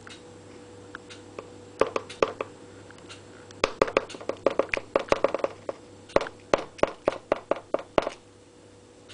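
Metal spoon digging through compost in a plastic flower pot, clicking and knocking against the pot. The taps come in a quick flurry, then settle into a slower series of about three a second before stopping about eight seconds in.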